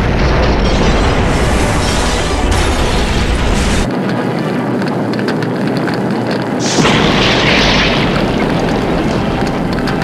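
Added sound effects of an atomic bomb blast: a dense, continuous explosion rumble and blast noise, changing abruptly about four seconds in, with a fresh louder burst about seven seconds in.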